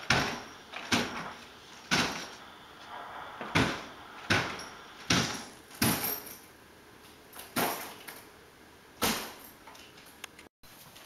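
Repeated heavy thuds, about one a second, from a wheeled suitcase bumping down a staircase step by step with footsteps.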